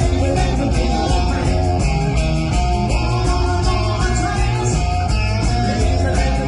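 Live blues-rock band playing, with electric guitar over bass and drums at a steady beat.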